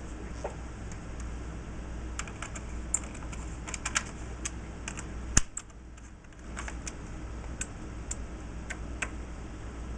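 Irregular light clicks and taps of small metal hardware and hand tools being handled during assembly, with one sharper click about five seconds in. A steady low hum runs underneath.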